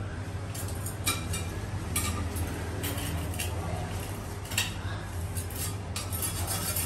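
A small hand tool scraping dried grout residue off glazed ceramic wall tiles: a string of short, irregular scrapes and clinks against the tile face, over a steady low hum.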